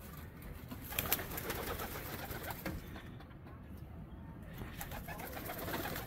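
Domestic pigeons cooing, with a couple of sharp clicks about a second in.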